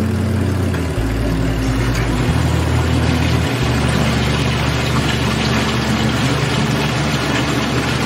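Samsung top-load washing machine running its spin cycle with the tub empty: a steady, loud rushing noise from the motor and spinning tub, started from the newly fitted manual spin timer. Background music with a low bass line plays under it.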